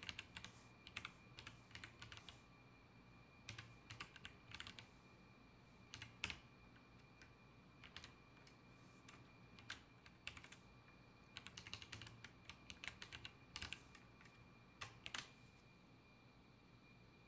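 Typing on a computer keyboard: short runs of keystrokes with pauses between them, stopping about two seconds before the end. A faint steady high-pitched tone runs underneath.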